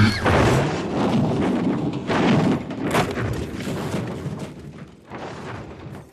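Car crash sound: a loud impact as the music cuts off, then a rush of noise with a few more knocks about two and three seconds in, fading away by about six seconds.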